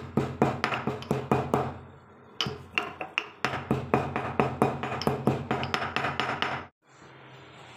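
Pestle pounding tulsi leaves, black pepper and cloves in a stone mortar: quick, even knocks about five a second, in three runs with two short breaks, stopping abruptly near the end.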